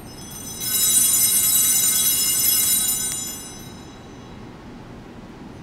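Altar bells shaken once, a bright metallic ringing of many high overtones that starts just under a second in, holds for about two and a half seconds and dies away.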